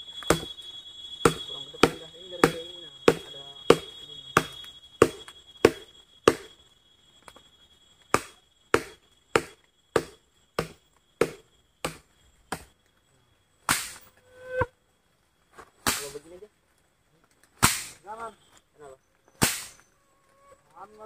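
Repeated sharp blows on wood, about one and a half a second for some twelve seconds with a short pause midway, then four slower, longer-sounding blows about two seconds apart.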